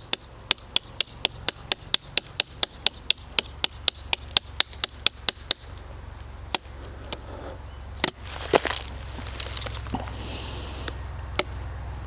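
Folding-knife blade struck repeatedly into the hard wood of a dead fallen log, about three sharp hits a second for five seconds or so, then a few scattered hits and a brief rustle.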